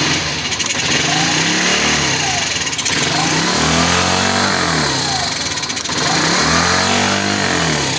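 Honda 70cc single-cylinder four-stroke motorcycle engine running and being revved three times, its pitch climbing and falling back each time.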